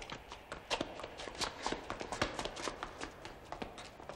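Footsteps of a man running on hard ground: quick shoe strikes, about three a second.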